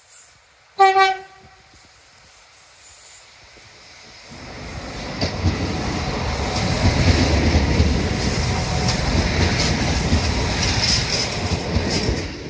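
Irish Rail 22000 Class InterCity diesel railcar sounding one short horn note about a second in, then running past the platform at speed with a loud rumble and wheel clatter. The noise builds from about four seconds in and drops away suddenly near the end as the last carriage clears.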